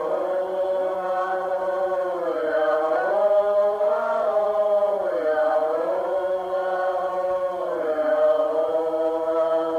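Slow meditative vocal chanting: long held notes that swell and slide up and back down in pitch every two or three seconds.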